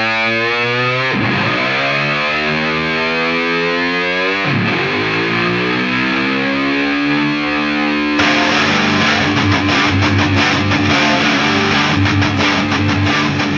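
Outro music: distorted electric guitar with effects, held notes sliding down in pitch, then a busier driving rock section from about eight seconds in.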